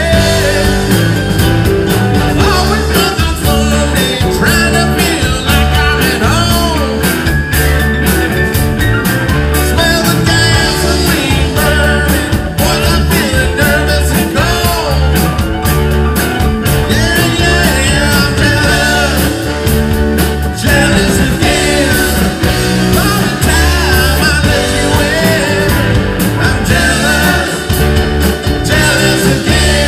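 Live rock band playing loudly, electric guitar and drums under a man singing lead.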